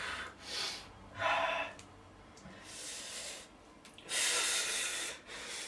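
A man breathing hard and gasping from the shock of sitting in cold bath water: about four sharp, rushing breaths, the last a longer one about four seconds in.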